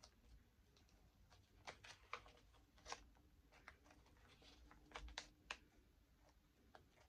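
Faint paper rustles and soft taps as the thick, embellished pages of a handmade junk journal are turned by hand, a handful of brief rustles spread through otherwise quiet room tone.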